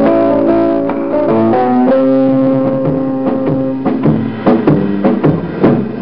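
Instrumental background music: held melody notes over a steady accompaniment, giving way about four seconds in to a run of quick, sharply attacked chords.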